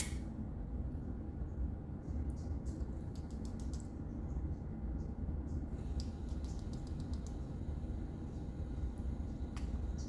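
Quiet room tone: a steady low hum, with faint soft clicks scattered through, more of them in the second half.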